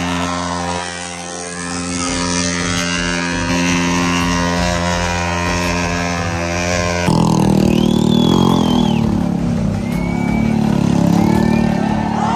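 Sport motorcycle engine held at high revs for a rear-tyre burnout, a steady drone. About seven seconds in the sound changes abruptly, and high squeals that rise and fall come in over the engine.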